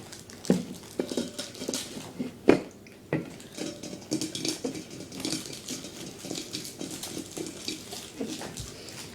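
Handling noise: a run of light clinks, taps and knocks, with a few sharper knocks about half a second, two and a half and three seconds in.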